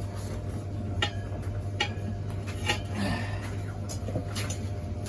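Steel tyre levers clicking and scraping against a motorcycle wheel rim a few times as a tyre bead is worked onto it by hand, over a steady low hum.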